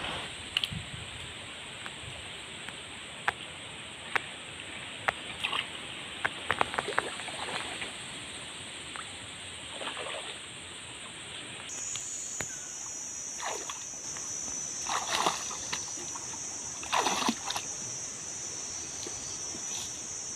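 Water sloshing and splashing as a person wades and works a fish out of a fishing net in a shallow pool. Scattered sharp clicks in the first half, and a few louder splashes later on.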